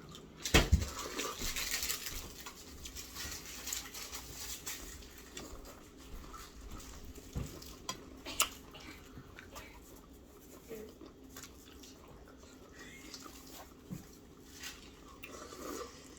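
Eating utensils clinking and scraping against a bowl or plate, with scattered sharp clicks: two loud ones just under a second in and another about eight seconds in.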